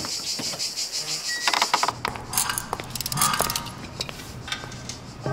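Insects chirring steadily for about the first two seconds, then small metal tools and parts clinking and tapping on a workbench in a string of sharp, separate clicks.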